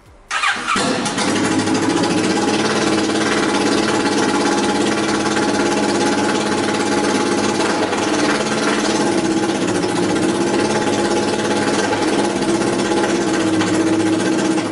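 Kawasaki ER-6n 649 cc parallel-twin engine starting and then idling with only the new Mivv header pipes fitted and no silencer, so it runs open-piped and very loud in a small concrete garage. It catches within the first second and holds a steady idle after that.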